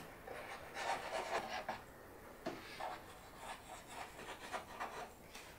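Faint, irregular rubbing and light scraping on wood: the nozzle of a wood-glue squeeze bottle drawn along the edge of a pine panel as a bead of glue is laid on.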